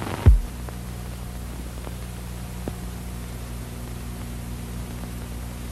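Steady hiss and low electrical hum from the soundtrack of an old, worn video transfer, with no music under the logo. A single low thump that drops in pitch comes about a third of a second in, followed by a few faint clicks.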